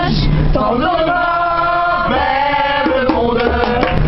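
A group of young people singing together in chorus, male voices prominent, holding long notes.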